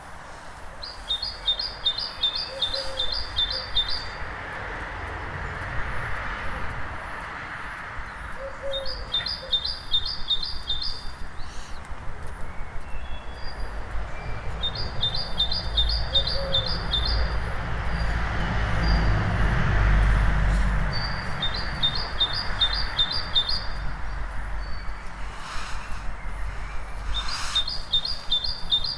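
Dawn chorus: a songbird repeats a short, fast phrase of repeated notes about every six seconds, with other birds chirping faintly. Under it a low town rumble swells in the middle and fades.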